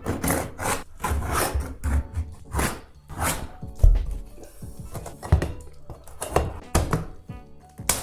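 Background music, with repeated knocks and scraping from hand tools working on wood trim and panels.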